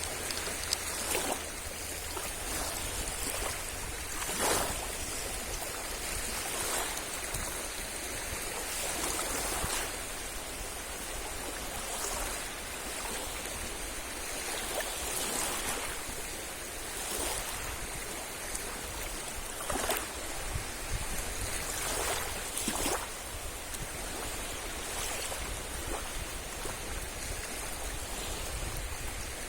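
Small sea waves washing onto a beach: a steady hiss of surf with a brief splash of a breaking wave every two to three seconds.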